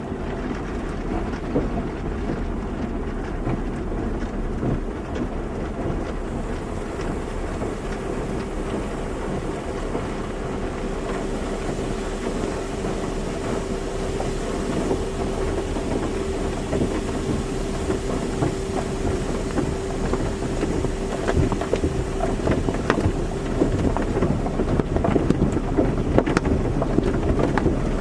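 Automatic car wash running: a steady rush of water spray and machinery, with a machine hum from about eight seconds in until about twenty-two seconds, and more spattering hits near the end.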